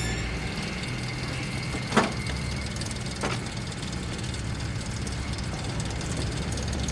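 A parked car's engine idling with a low, steady hum. A sharp click comes about two seconds in and a fainter one about a second later as the car's door is opened.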